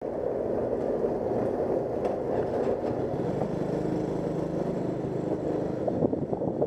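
Steady engine rumble on a car ferry's deck as it comes alongside, with a low steady hum for a couple of seconds in the middle.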